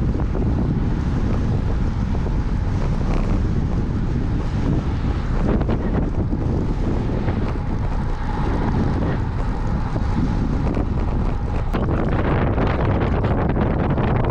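Strong wind buffeting the microphone: a loud, steady low rumble of wind noise.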